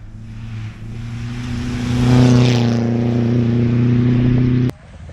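Drift car engine held at steady high revs, growing louder as it comes closer, then cutting off suddenly near the end.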